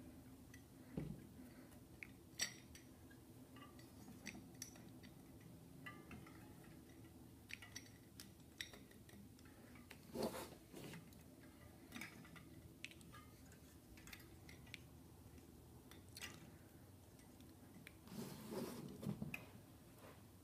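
Scattered small metallic clicks and clinks of bolts, sprocket and spokes knocking together as the bolts are worked one at a time through a rear sprocket adapter on a bicycle hub. There are a few louder knocks about halfway through and a short cluster near the end, over quiet room tone.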